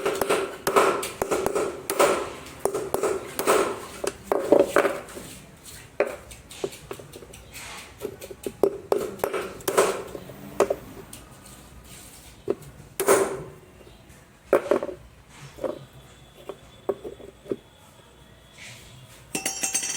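Repeated metal-on-metal taps that ring, several a second at first, then sparser single strikes: new drum bearings being knocked into their greased seat in a washing machine's drum housing, to cure a drum noise caused by two worn bearings.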